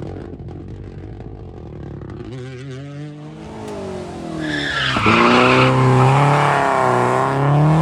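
Historic rally car's engine coming closer and revving hard, its pitch climbing and dipping with throttle and gear changes. Tyre squeal joins in about halfway through as the car slides past.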